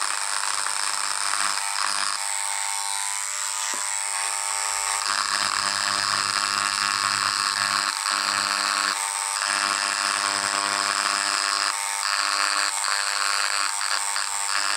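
Handheld rotary engraving tool running with a steady high motor whine while its bit grinds lines into glass. The tone shifts a few times as the bit is pressed on and eased off the glass.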